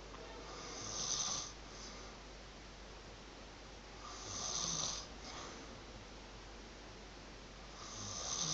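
A sleeping person snoring: three loud snores, one about every three and a half seconds, each swelling and fading over about a second.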